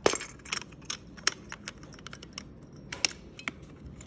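Light plastic clicks and taps from a small plastic electric pencil sharpener being handled: one sharp click right at the start, then a dozen or so smaller scattered clicks.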